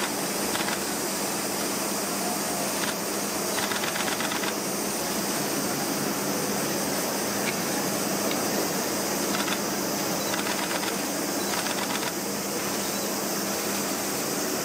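Steady hiss and hum of an indoor ventilation or air-conditioning system, with a few faint, brief ticks.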